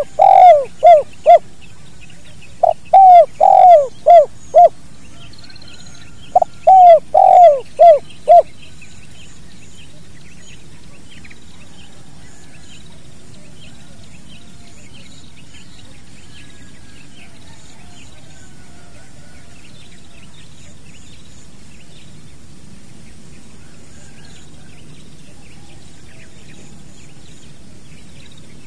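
Spotted dove cooing: loud phrases of several falling coo notes, one ending just after the start and two more following at intervals of about two seconds, after which the dove falls silent about eight seconds in. Faint high chirps of small birds and a steady hiss continue throughout.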